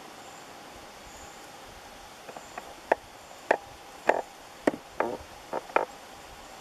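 Footsteps cracking and crunching on dry fallen leaves and twigs: about ten short, sharp, irregular cracks, starting about two seconds in and stopping shortly before the end.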